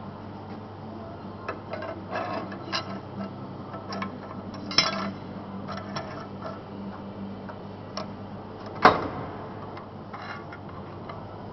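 Scattered metal clinks and knocks from parts and tools being handled as liners are changed on a corrugated-elbow pipe-bending machine. The sharpest knock comes about nine seconds in, and a steady low hum runs underneath.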